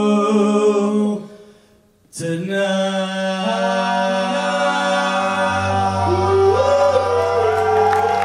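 Male vocal group singing a cappella in close harmony, holding long chords. The held chord fades away about a second in, leaving a brief gap. The voices then come back in together on a new sustained chord, a low bass part joins about halfway through, and a top voice steps upward near the end.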